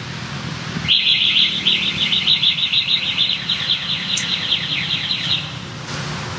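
A bird's fast trill of repeated falling notes, about six a second, starting about a second in and stopping abruptly some four and a half seconds later, over a steady low hum.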